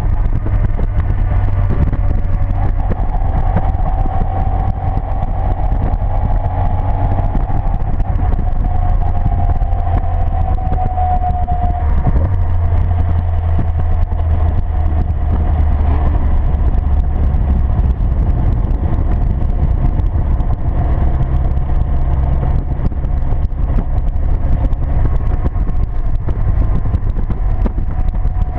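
Seven sports car's engine running at speed on track, heard from inside its open cockpit, its note drifting gently up and down with the revs, over a heavy wind rumble on the microphone.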